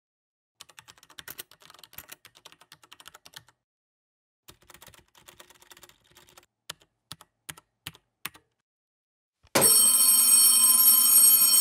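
Keyboard typing in two quick runs of key clicks, then a few single key presses. About two-thirds of the way in, a telephone bell starts ringing loudly and keeps on ringing.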